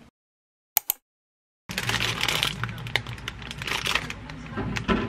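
Two quick sharp clicks out of silence, then from about two seconds in, a thin plastic bag crinkling and rustling as a bagel is handled and taken out of its wrapper.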